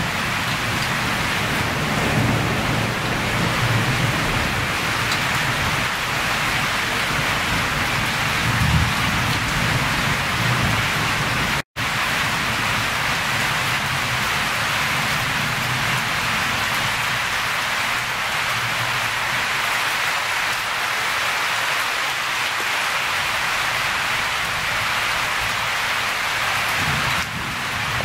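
Steady rainstorm rain hissing down, with a low uneven rumble under it for the first ten seconds or so that then fades. The sound cuts out for an instant a little before the middle.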